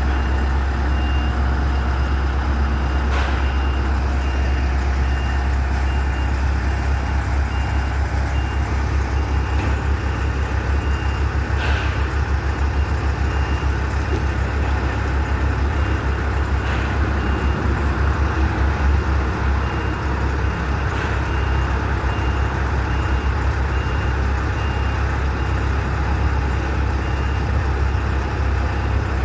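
A heavy diesel machine's engine running steadily on a construction site, with a backup alarm beeping in an even series that stops about a third of the way in. A few separate knocks are heard.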